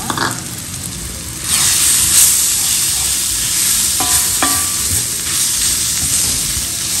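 Crumbled shark and ground coconut masala sizzling in oil in a cast-iron kadai while a wooden spatula stirs and scrapes them through the fried onions. The sizzle grows louder about one and a half seconds in, with two short taps of the spatula a little past the middle.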